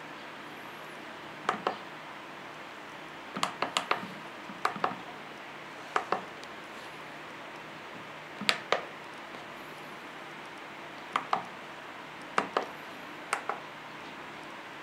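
Keys on the keypad of a ShaoGe SMC4-4-16A16B offline CNC controller being pressed: short clicks, mostly in pairs and quick runs, coming at uneven intervals.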